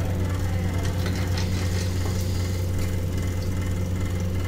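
A steady low electrical hum with even overtones, with a few faint clicks over it.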